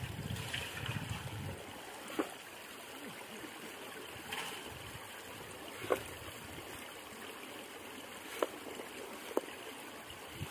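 Water steadily trickling and dripping from a raised bamboo lift net, with a few short sharp splashes as the fish in it are scooped out with a small bucket.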